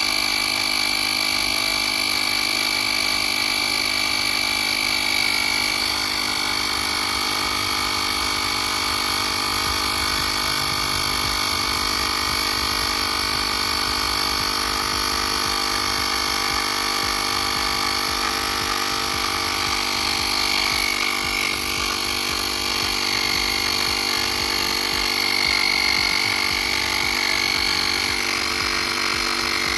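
Cycplus A7 portable tyre inflator's small electric compressor running steadily with a high whine, pumping up a flat bicycle tyre.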